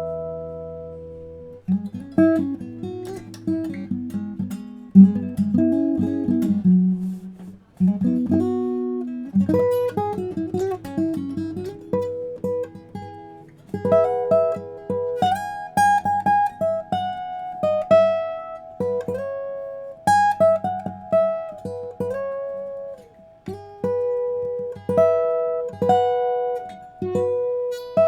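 Guild JF-30 jumbo flattop acoustic guitar played solo. A chord rings out at the start, then plucked notes and chords follow, and the line climbs into a higher register from about halfway.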